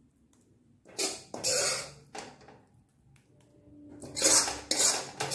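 Steel spoon scraping against a pan and a paper-lined dish while thick, crumbly kalakand mixture is spread out, in two noisy stretches, about a second in and again about four seconds in.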